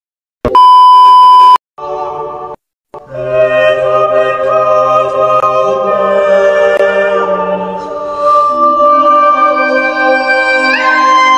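A loud, steady beep lasting about a second, then a short chord. From about three seconds in, voices sing long held chords in close harmony, a cappella, and the chord steps up near the end.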